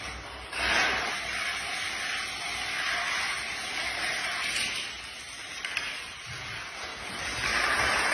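Playing cards stood on edge toppling one after another in a chain reaction on a tiled floor: a continuous rapid clatter that jumps up about half a second in and grows louder near the end.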